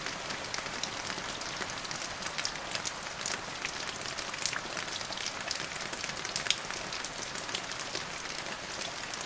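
Steady rain falling, a dense even hiss with many separate drops tapping sharply on a hard surface.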